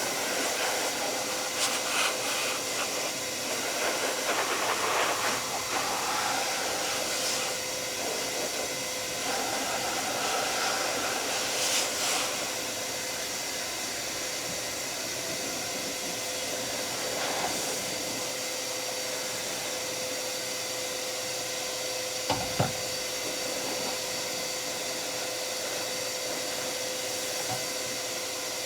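Large Ridgid shop vacuum running as a blower, its hose on the exhaust port, pushing a steady rush of air with a constant whine. A brief knock about two-thirds of the way through.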